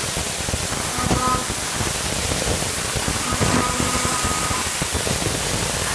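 CNC milling machine running: a steady hiss of noise, with a faint pitched whine coming in briefly about a second in and again for about a second and a half from three seconds in.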